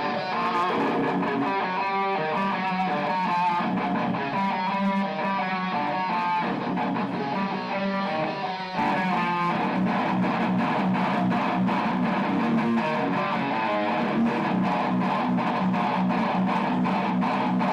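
Electric guitar playing a heavy-metal riff at full volume. About nine seconds in, the playing changes to an even pulse of sharp, regular hits.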